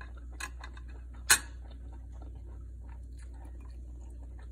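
Metal spoon and fork tapping against a plate, with one sharp, loud clink a little over a second in and a few lighter clicks before it, over a steady low hum.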